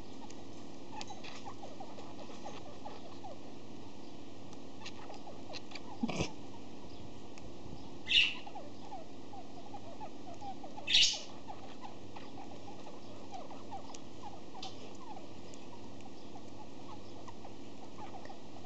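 Pet budgie making faint small clicks and chirps, with three short, louder noisy sounds about six, eight and eleven seconds in: the weird sniffly sounds its owner takes for the sniffles. A steady low hum runs underneath.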